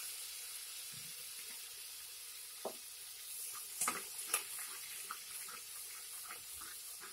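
Garlic-ginger paste and whole spices sizzling in hot oil in a pressure cooker, a steady hiss, with a few clicks and scrapes of a metal spoon stirring against the pot, the sharpest about three and four seconds in.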